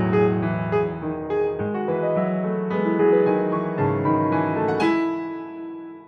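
Solo piano playing a flowing passage of many notes across low and middle registers, dying away near the end.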